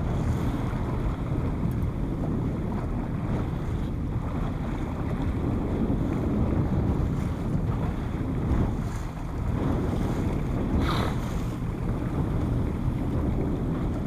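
Motorboat running over choppy sea: wind buffeting the microphone over the steady rush of the hull through the waves and the drone of its engine, with a short hiss about eleven seconds in.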